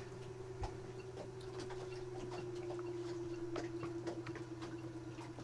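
Faint, scattered metallic clicks of starter-motor parts being handled and fitted together by hand, over a steady low hum and a faint steady tone that slowly drops a little in pitch.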